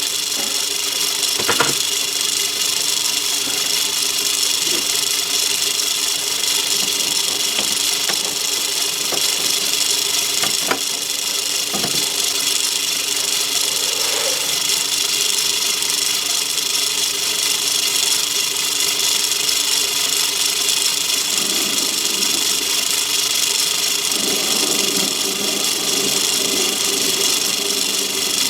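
Myford ML7 lathe running with a steady motor-and-drive hum and whine, a few sharp clicks in the first half. A rougher noise joins about three quarters of the way through as the tool cuts into the cast metal.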